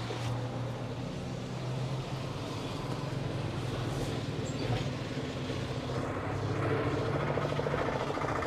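Steady low hum of road traffic. A fast, even patter grows louder over the last couple of seconds.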